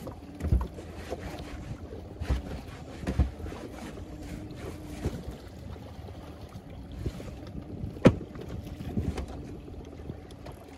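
Water slapping against a small boat's hull, with wind on the microphone and a faint steady hum underneath. Irregular knocks and thumps break in, the sharpest about eight seconds in.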